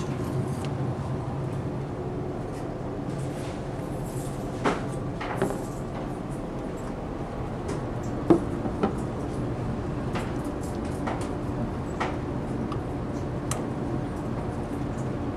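Steady low hum of the ferry's machinery, with a few light clicks and knocks of tableware as a ceramic udon bowl and wooden chopsticks are handled and set on a counter; the sharpest knock comes about eight seconds in.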